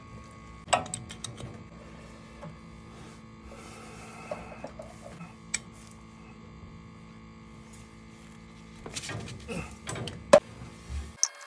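Light metallic clicks and taps as copper pipe and an adjustable wrench are handled, with a busier patch of knocks and one sharp clink near the end, over a steady low hum.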